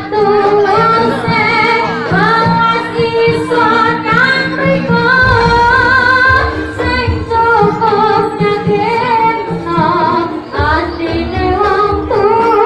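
Female singer performing a Javanese-style melody with ornamented, wavering lines over live instrumental accompaniment; the low accompaniment grows heavier about five seconds in.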